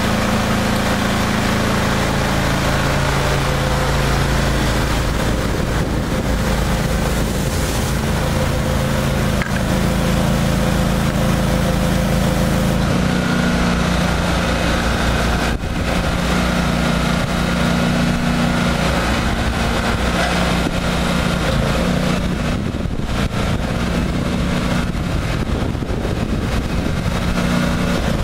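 Engine-driven hot-water pressure washer running steadily under load, a constant engine hum over a broad hiss. The engine's tone shifts slightly about halfway through.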